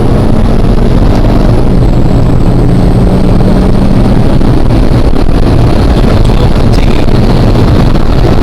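An engine running loudly and steadily, with a thin high whine that drops about two seconds in and then slowly climbs again.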